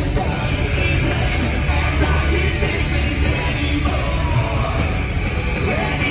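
Heavy metal band playing live at full volume: distorted electric guitar, drums and bass, heard from within the crowd.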